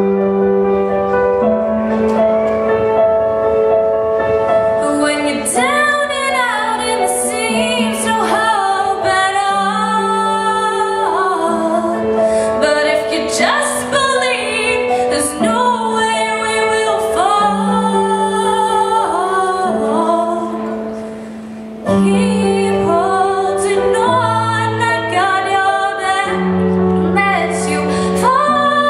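A young woman singing a slow song into a handheld microphone over instrumental accompaniment with long held notes. The accompaniment plays alone at first and her voice comes in about five seconds in. There is a brief lull a little past two-thirds through before voice and accompaniment resume.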